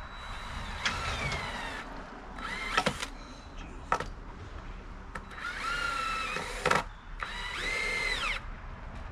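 Power drill driving screws into deck framing lumber in four short runs, the motor whine shifting in pitch during each run, with a few sharp clicks in between.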